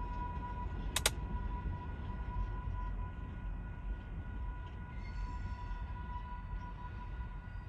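Train rolling by: a steady low rumble with a thin steady high tone over it. A sharp double click about a second in.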